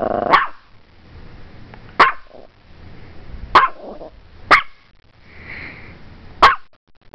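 A small Morkie (Maltese–Yorkshire terrier mix) growls, and the growl breaks into a sharp bark just after the start. Four more single sharp barks follow, each a second or two apart.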